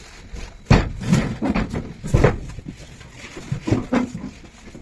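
Cardboard cartons knocking and scraping as they are loaded and stacked in a pickup's cargo bed: a string of irregular thumps, the loudest a little under a second in and a little past two seconds in.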